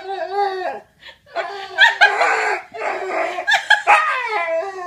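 A dog howling in several long, wavering calls.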